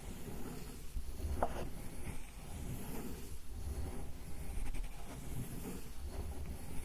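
Ink stick being ground on an inkstone: a continuous soft rubbing and scraping as the stick slides over the stone, making sumi ink.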